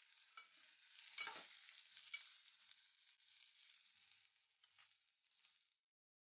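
Faint sizzle of sliced pointed gourd and onion frying in oil in a metal pot, with a spoon stirring and scraping the pot a few times; the loudest stroke comes just over a second in. The sizzle fades and cuts off shortly before the end.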